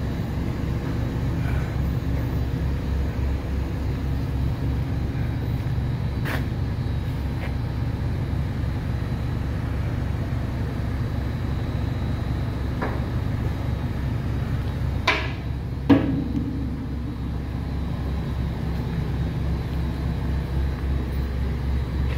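A steady, low mechanical hum of running shop machinery, broken by a few sharp knocks; the loudest, about 16 seconds in, rings briefly.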